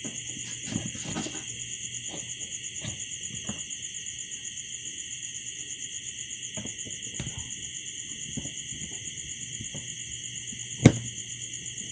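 Steady, high-pitched, rapidly pulsing trill of night insects such as crickets. Over it come faint clicks and taps of a screwdriver working screws out of a motorcycle headlight housing, and one sharp knock near the end.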